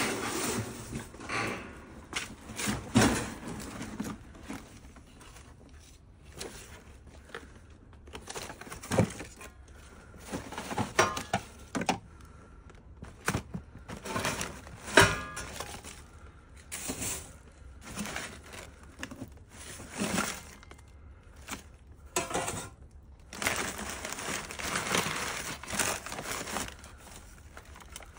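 Rummaging through a cardboard box of items wrapped in crumpled packing paper: the paper crinkles and rustles in irregular bursts, with scattered knocks and clatters of hard pieces being shifted and lifted out.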